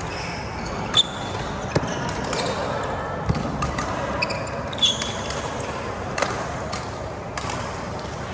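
Badminton rally in a hall: sharp racket-on-shuttlecock hits every second or so, with short high squeaks of court shoes on the floor.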